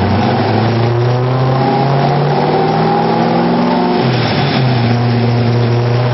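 Engine under load, accelerating with its pitch climbing steadily; the pitch drops sharply about four seconds in, as on a gear change, then climbs again.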